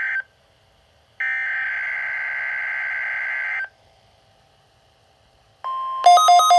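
NOAA Weather Radio SAME alert signalling: a digital header burst of buzzy two-tone data ends just after the start, and after a second of silence another burst runs for about two and a half seconds. After two more seconds of silence a steady single tone starts near the end, and within half a second a louder pattern of rapidly repeating electronic beeps joins it.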